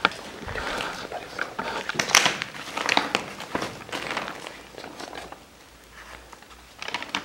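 Old paper sheets rustling and crinkling as they are handled and leafed through, in irregular crackles that are busiest in the first few seconds. There is a quieter spell, then more rustling near the end.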